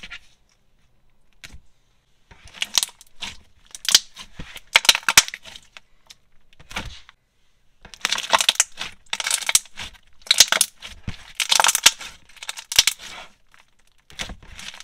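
Thick, clear semi-coated slime squished and pressed by hand, giving repeated bursts of crackly bubble pops and clicks, starting about two seconds in.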